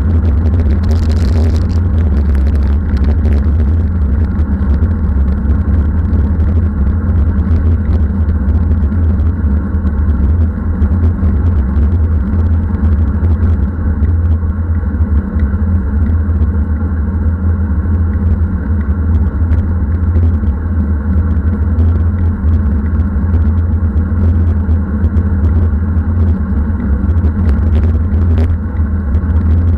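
Strong wind buffeting the microphone of a bike-mounted Garmin VIRB action camera at riding speed: a loud, steady low rumble.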